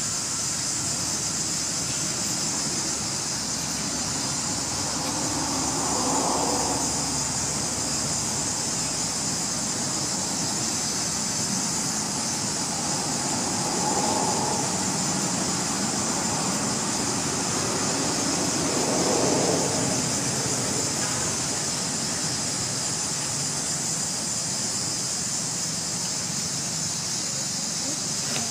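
A steady, high-pitched drone of insects, with three brief swells of a lower sound a few seconds apart.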